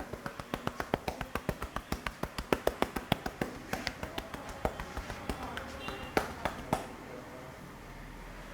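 Barber's hands tapping quickly on the head during an Indian head massage: a fast, even run of sharp taps, about five a second, that stops about seven seconds in.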